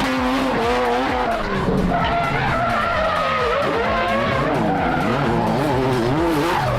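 Car tyres squealing in long, wavering screeches as a car drifts, over the running engine.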